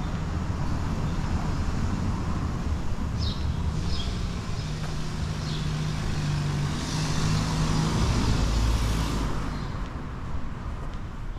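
City street traffic: a heavy vehicle's engine hums low and steady, and a louder rush of passing traffic swells from about seven seconds in and fades near nine and a half.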